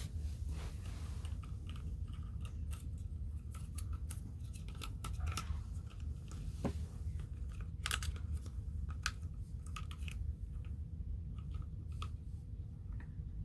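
Irregular small clicks, snips and scrapes of objects being handled, over a steady low hum.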